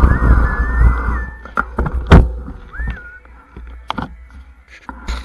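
Mountain bike slowing to a stop on a dirt trail: the rolling and wind noise fades out, with a wavering high squeal for the first second or so and a short rising-and-falling squeal near the middle. A few sharp knocks and clicks come through, the loudest about two seconds in.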